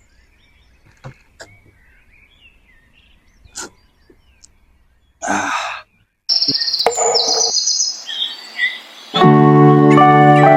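Faint bird chirps for the first few seconds, then a short loud rushing burst just past five seconds and a run of brief sounds. About nine seconds in, loud piano music begins with sustained chords.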